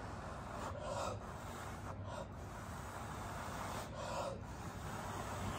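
A person blowing by mouth onto wet acrylic pour paint to spread a bloom: three short, breathy puffs of breath, each about half a second long, over a quiet background.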